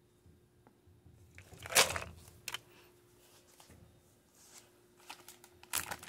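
Plastic food packaging being handled: crinkling rustles, loudest about two seconds in and again near the end.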